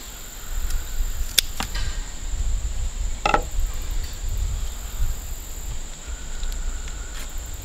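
Steady high drone of insects, crickets or similar, with a few sharp clicks about a second and a half in and a short knock about three seconds in, over a low rumble.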